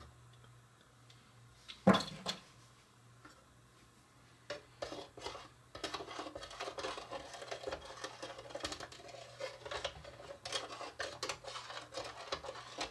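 A spoon scraping and clicking quickly and steadily in the small mixing chamber of a toy coffee maker, stirring cocoa powder into water, after a sharp knock about two seconds in.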